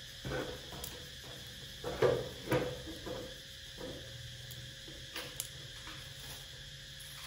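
A few light knocks and scuffs, loudest a pair about two seconds in, from a baby monkey climbing down a wooden board onto a large gourd and crawling off it, over a faint steady hiss.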